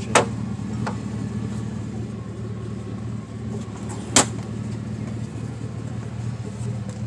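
A vehicle engine running steadily at idle, with a couple of light clicks near the start and one sharp click about four seconds in.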